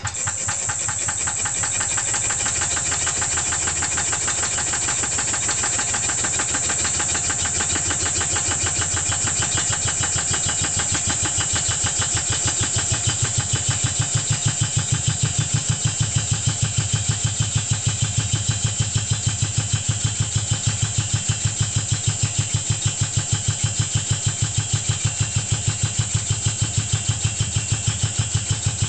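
Rebuilt old piston air compressor, driven by a three-phase electric motor at half speed, running with a fast, even beat from its strokes and a steady hiss of air. About halfway through the beat turns heavier and louder, as the compressor comes under load once its oil-pressure decompressor closes.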